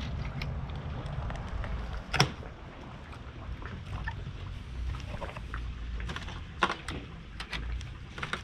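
Clicks and knocks of a wire-mesh animal enclosure's door and latch being handled: one sharp click about two seconds in, then several lighter clicks and knocks, over a low steady rumble.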